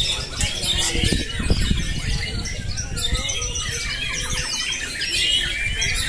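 Many caged white-rumped shamas (murai batu) singing at once, a dense overlapping mix of fast rising and falling whistles and chirps, with people's voices underneath.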